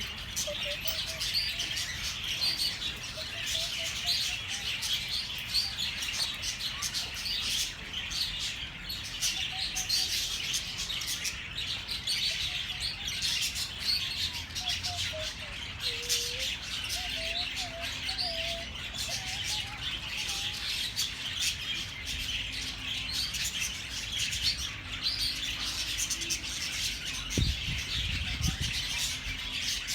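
A crowd of small birds chirping and twittering without a break, many high calls overlapping, with a few lower whistled notes in the middle. A short low rumble near the end.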